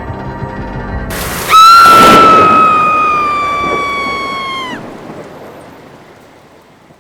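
Background music, then about a second in a sudden loud thunder-crash sound effect whose rumble fades away slowly. Over it a loud, high, held tone sounds for about three seconds, sinking slightly in pitch before cutting off.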